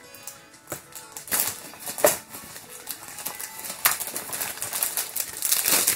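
Clear plastic shrink wrap being crinkled and torn off a cardboard box: a run of crackling rustles with several louder rips.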